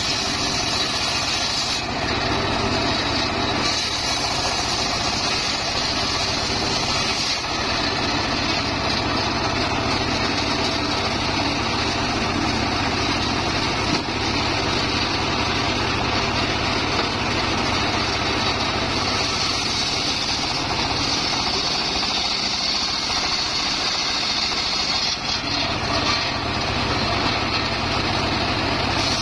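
Homemade engine-driven circular sawmill running steadily, its large blade ripping teak logs lengthwise now and then, with the cutting noise rising and easing as the wood is fed through.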